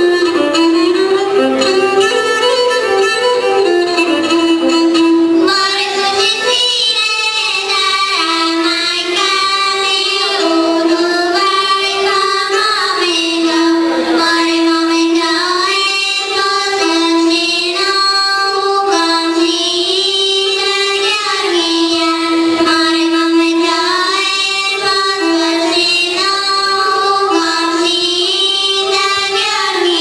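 Young girls singing a Bulgarian folk song together in harmony, accompanied by a bowed gadulka. The gadulka plays alone for about the first five seconds before the voices come in over a steady held low note.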